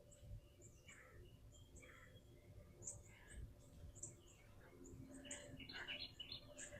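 Near silence with faint, scattered bird chirps in the background, and a few soft small noises in the last two seconds.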